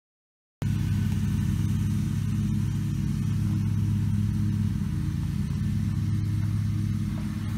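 An engine running steadily at idle, a low hum with a constant pitch, starting abruptly about half a second in.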